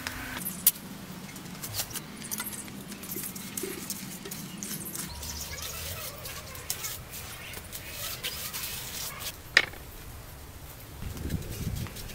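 A steel trowel scraping and tapping on wet cement and stone slabs, in scattered short strokes, with two sharp knocks, one near the start and one about three-quarters through.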